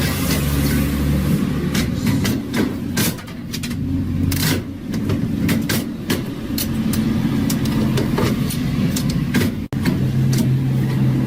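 Vending machine running with a steady low hum, with a series of sharp clicks and knocks over it.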